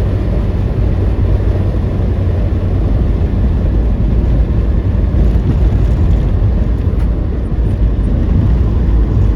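Car driving: a loud, steady low rumble of engine and road noise, with no change in pitch.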